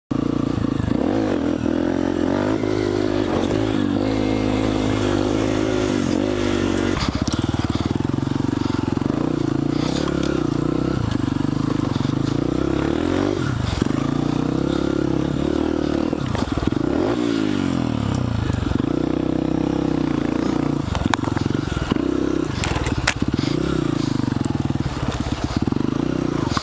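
Honda CRF150F dirt bike's single-cylinder four-stroke engine running, its pitch rising and falling as the throttle is opened and eased off, with scattered sharp clicks and crackles.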